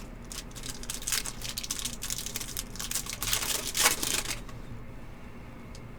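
Trading cards and their packaging being handled: a quick run of rustling and light clicking that dies down after about four seconds.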